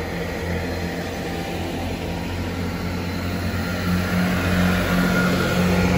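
Chiltern Railways Class 165 diesel multiple unit running at the platform, a steady low diesel engine drone that grows louder about four seconds in.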